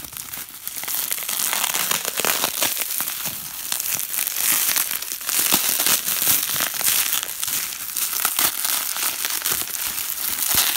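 Plastic bubble wrap being squeezed and crumpled in the hands: a continuous crinkling with many sharp little crackles.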